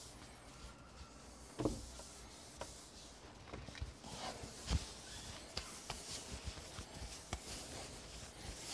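Bowling ball being handled and wiped with a microfiber towel: faint rubbing with scattered light knocks and clicks, the loudest about a second and a half in and near five seconds in.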